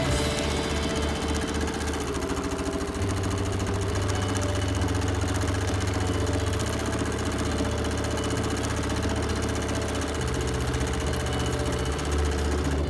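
Bernina Q20 sit-down longarm quilting machine running steadily, its needle stitching rapidly through the quilt layers with a fast, even mechanical patter over the motor's hum.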